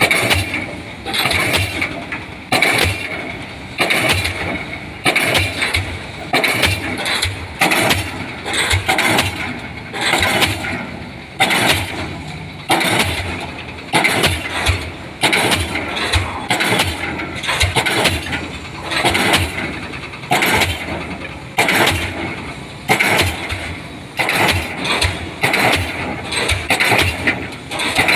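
Diesel pile hammer (DD 55) driving a 500 mm concrete pile: a steady rhythm of heavy blows, a little more than one a second, each one the hammer's combustion stroke striking the pile.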